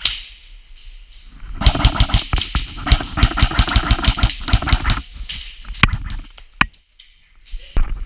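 Airsoft gun firing on full auto in long rapid bursts, followed by a few single sharp cracks.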